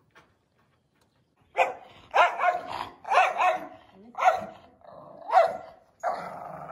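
Samoyed barking and yowling in a run of short calls, about one a second, starting about a second and a half in.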